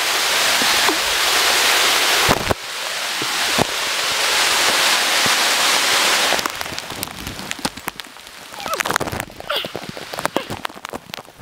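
Heavy rain pouring down as a dense, steady hiss. About six seconds in it drops away to a quieter patter of separate drops ticking close to the microphone.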